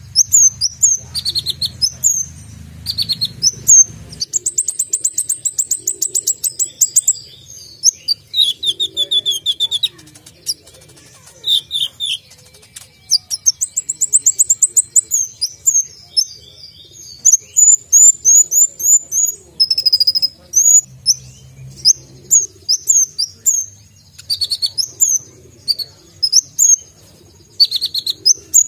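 Caged kolibri ninja sunbird singing: fast, high-pitched chirps and rapid trills in bursts a few seconds long, with short pauses between them.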